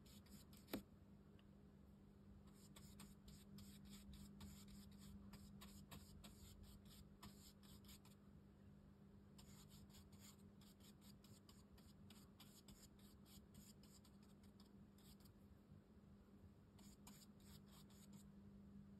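Faint scratchy strokes of a round watercolour brush dabbing and working paint into rough handmade cotton rag paper, coming in short runs, with a single sharp click about a second in.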